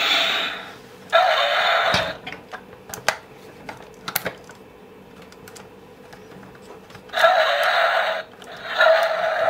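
A battery-powered toy playset plays bursts of electronic sound effects through its small speaker, each about a second long. Two come near the start and two near the end, with a few faint clicks in between.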